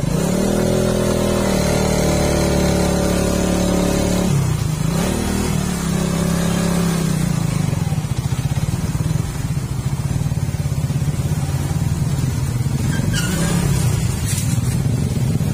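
Motorcycle engine revving up and holding high revs, easing off and revving again, then dropping back to a steady lower running sound for the second half.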